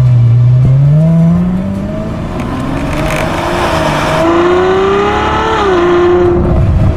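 Ferrari F12 Berlinetta's V12 exhaust, heard at the rear bumper, pulling away under acceleration. Its pitch climbs steadily for about five seconds, then drops near the end as it shifts up and settles.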